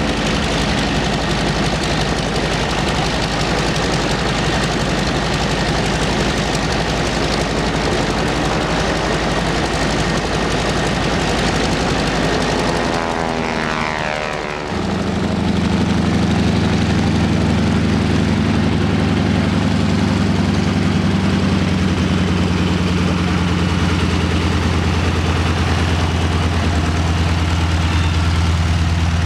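Aircraft engine noise: a loud roar with a sweeping, phasing pitch as an aircraft passes, then, about halfway through, an abrupt change to a steady low engine drone.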